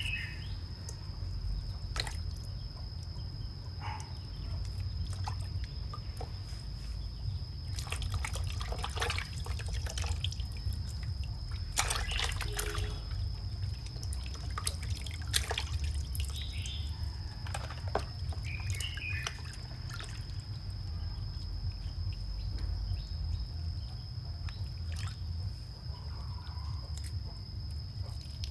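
Water dripping, trickling and splashing as raw frogs are gutted and cleaned by hand, with scattered sharp splashes and knocks, a cluster of them about a third of the way in.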